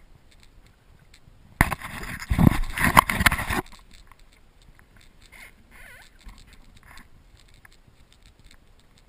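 Water noise from paddling a stand-up paddleboard on calm sea, picked up close to the board: a loud stretch of splashing and rushing water of about two seconds starting near the two-second mark, then faint lapping and small ticks.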